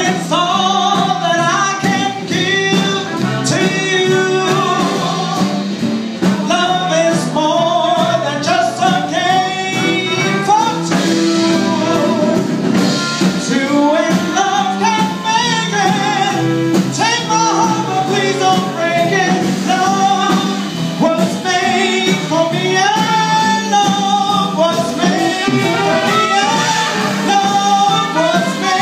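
A small New Orleans trad jazz band playing live: trumpet and saxophone carry wandering melodic lines over guitar and upright bass, with no singing.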